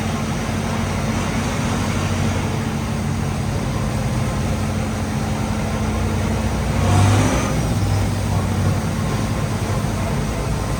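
Farm tractor engine running steadily with a low hum, swelling briefly louder about seven seconds in.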